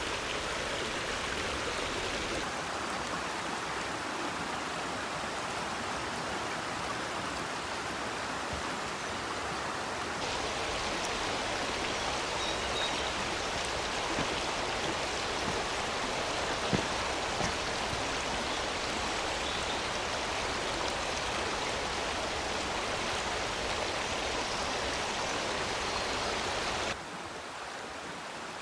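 River water rushing and splashing in a steady wash of noise. It drops a little quieter shortly before the end.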